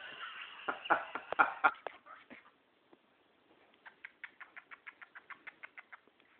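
Pet cockatiel chattering: a dense run of calls for about two seconds, then after a short pause a rapid string of short chirps, about five a second.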